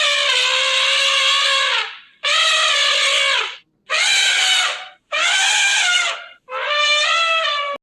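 An elephant trumpeting: five loud, brassy blasts in a row, each one to two seconds long and cut off sharply, the later ones wavering in pitch.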